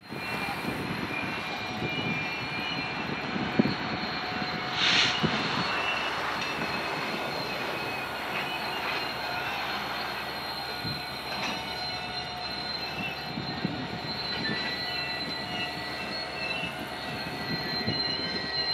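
Freight train rolling slowly through a switching move: a steady rumble of cars with thin, high steel-wheel squeal tones, and a short hiss about five seconds in.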